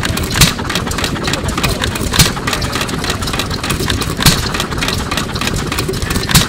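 ARCO Type GH 2 hp hit-and-miss engine (Hercules, about 1924) running: a sharp firing bang roughly every two seconds, four in all, with a steady mechanical clatter between them. Between bangs the engine coasts on its flywheels with the exhaust valve held open, firing only when its speed drops below the governor's setting.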